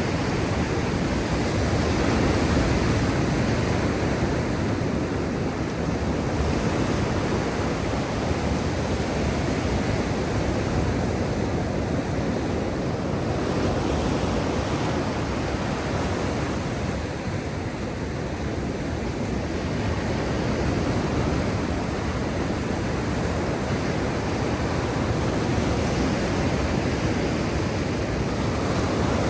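Sea surf: waves washing onto the shore in a continuous rushing noise that swells and eases gently every few seconds.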